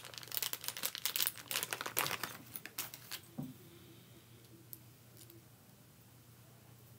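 Quick irregular clicks and plastic crinkling from handling the parts of an interchangeable knitting needle set and its packaging, dying away after about three seconds into a faint steady hum.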